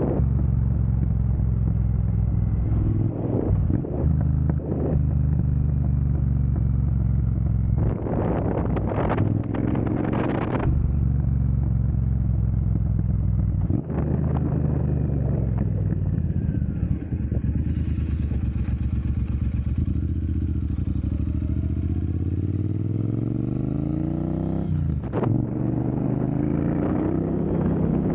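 Triumph Bonneville Speedmaster's 1200 cc parallel-twin engine running through a Jekill & Hyde electronically adjustable valved exhaust while riding, the pitch stepping up and down with throttle and gear changes. Near the end the engine note climbs steadily for several seconds, then drops sharply at a shift.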